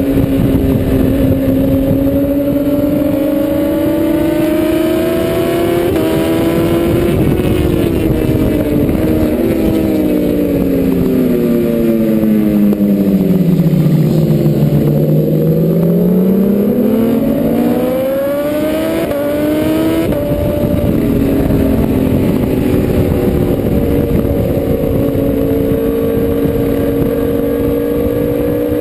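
BMW S1000RR superbike's inline-four engine at racing speed. It holds high revs, then its pitch falls in steps over several seconds as the bike slows and shifts down. About halfway through it climbs back up through the gears and holds high again.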